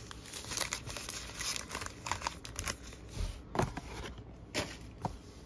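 Trading card packs and their cardboard blaster box being handled: plastic pack wrappers crinkling, with several light taps and clicks scattered through.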